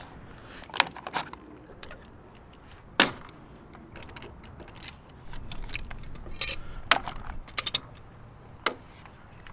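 Steel bar clamps being unscrewed and lifted off a glued wooden beam: scattered metallic clicks and clanks, the loudest about three seconds in, with a quick run of clicks near the end.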